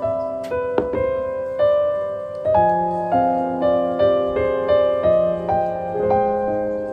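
Slow, gentle piano background music, single sustained notes struck about every half second in a soft melody.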